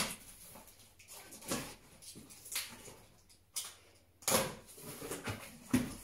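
Cardboard box being opened with a small knife: packing tape being slit and the cardboard flaps scraped and pulled open, in several short scratchy sounds with pauses between them.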